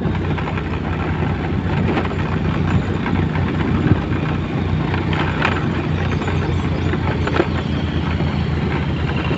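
Motorcycle engine running at a steady pitch while riding uphill, with road and wind noise over it.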